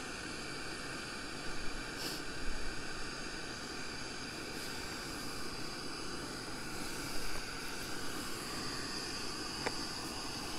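Screw-on gas burner on a Coleman Xtreme canister burning steadily with an even hiss, heating a frying pan held on top of it.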